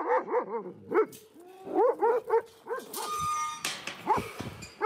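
Several shelter dogs barking and yipping excitedly in quick overlapping calls. A harsher, noisier sound with a high steady tone cuts in about three seconds in, lasting just over a second.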